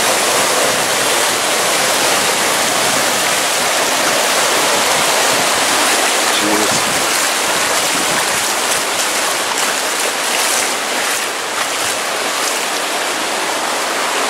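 Floodwater from a burst water main rushing across yards and the street: a loud, steady rush of water.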